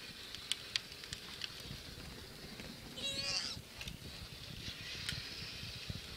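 A toddler's short, high, cat-like squeal about three seconds in. It comes over the steady low rumble of a battery-powered toy Jeep's plastic wheels rolling on pavement, with a few sharp clicks in the first second.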